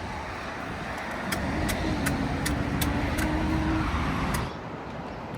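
A motor vehicle running close by, with a steady hum through the middle, and a regular light ticking about two to three times a second; the noise drops away suddenly about four and a half seconds in.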